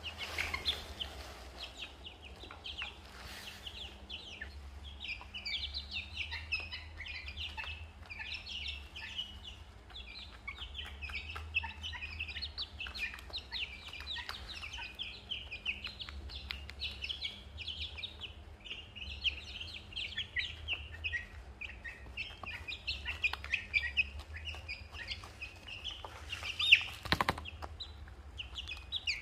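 Young chickens and ducklings peeping and chirping without a break, many short high calls overlapping. A single sharp knock near the end.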